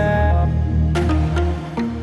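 Background music with held bass notes and a few sharp drum-like hits.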